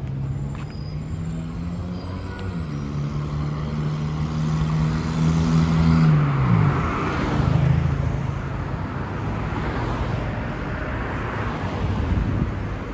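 Road vehicle passing by. Its engine note steps up about two and a half seconds in, then drops sharply as it goes past at about six and a half seconds, giving way to tyre and road noise.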